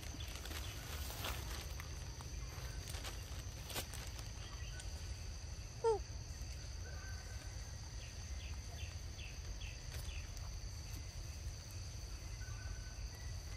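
Outdoor ambience: a steady high insect drone over a low rumble, with faint scattered clicks. A single short call falls in pitch about six seconds in.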